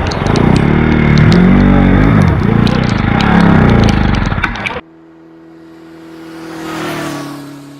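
Motorcycle engine revving up and down several times, with sharp clicks over it, cutting off abruptly about five seconds in. Then a much quieter steady hum, with a rushing noise that swells and fades near the end.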